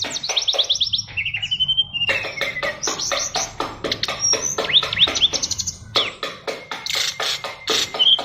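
SRDC songbird singing a fast, packed song of rapid chirps, clicks and short rising whistles, with brief lulls about a second and a half in and again near six seconds. The song is stuffed with varied phrases, the 'isian' that marks a contest bird.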